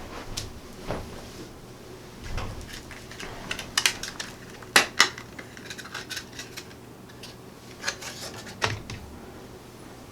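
Scattered light clicks and small clatters of hard plastic and metal as a Ryzen processor and its packaging are handled, over a faint steady low hum. The sharpest clicks come about four to five seconds in and again near the end.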